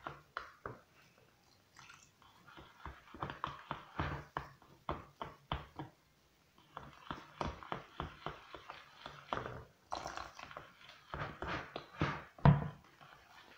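A metal spoon beating eggs and oil into a well of flour in a plastic bowl: quick runs of clicks and taps as it strikes the bowl, with a short lull about six seconds in and a sharper knock near the end.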